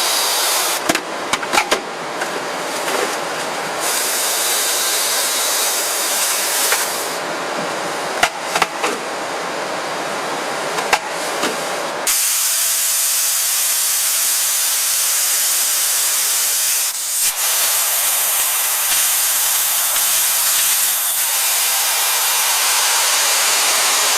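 Steady hissing of spray or rushing air, with sharp clicks and knocks in the first half. About halfway through it changes abruptly to a thinner, higher hiss.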